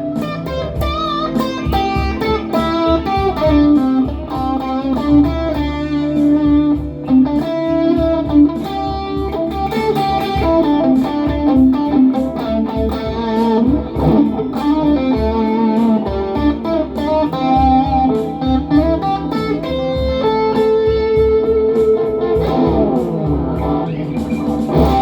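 Les Paul Hurricane electric guitar playing melodic single-note lead lines through delay and reverb pedals, with a held lower part beneath and notes sliding in pitch near the end.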